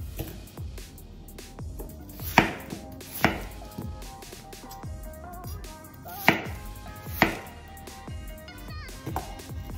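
Kitchen knife cutting through peeled nagaimo (Chinese yam) on a wooden cutting board: four sharp knocks of the blade on the board, in two pairs about a second apart, the second pair about three seconds after the first.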